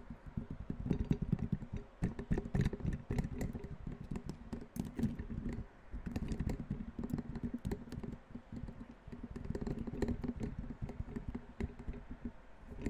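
Rapid, irregular tapping, many dull taps a second, with a short lull a little before the middle.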